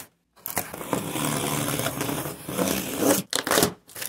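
Utility knife blade drawn along the seam of a cardboard box, a long scraping cut through the tape and cardboard, followed by a couple of short sharp noises near the end.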